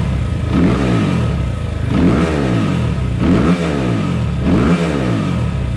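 2020 SSR SR300 dirt bike's single-cylinder four-stroke engine, newly fitted with a Lectron carburetor, blipped about four times. Each blip revs up and drops straight back to idle, taking the throttle cleanly without a bog.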